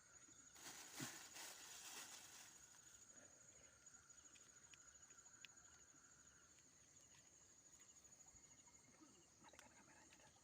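Faint, steady high-pitched chirring of night insects, with a brief rustle about half a second in that lasts a couple of seconds, and a few light clicks.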